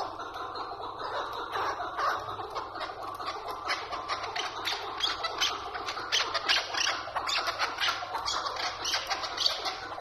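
Chukar partridge calling: a fast, unbroken series of harsh, chattering chuck notes.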